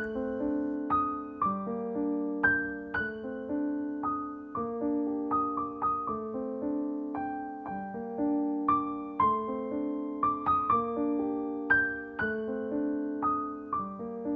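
Instrumental background music: a keyboard, electric-piano-like, playing a slow tune of struck notes over held lower notes.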